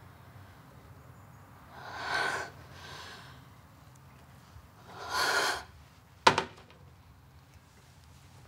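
A woman's heavy, shaky breaths: sharp gasping intakes and exhales about two, three and five seconds in, as she breaks down in distress. A single sharp click a little after six seconds in.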